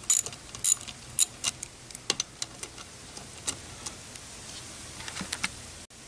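Socket ratchet clicking in short irregular bursts as it backs out a bolt on an outboard's water pump housing, followed by a few light metallic clicks as the loosened bolt and socket are handled.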